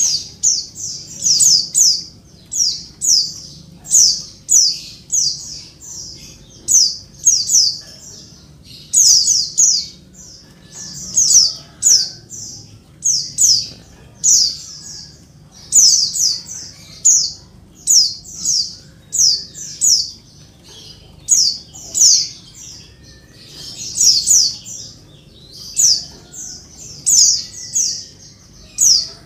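Female white-eye (pleci) calling noisily and without pause: short, high, falling notes in quick clusters of two or three, repeated over and over.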